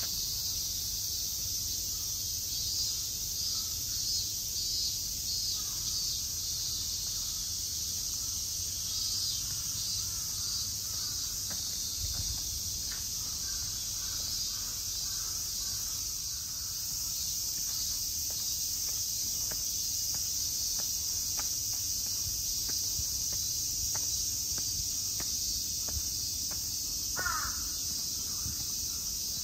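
Crows cawing several times over a steady, high-pitched insect drone, with one louder call near the end.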